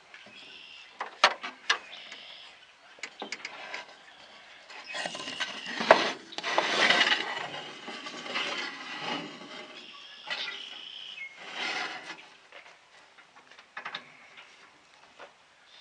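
Wood and tool parts being handled while a saw is set up: scattered clicks and knocks, with a few seconds of rubbing and scraping about five seconds in and a shorter one near twelve seconds. No saw motor is running.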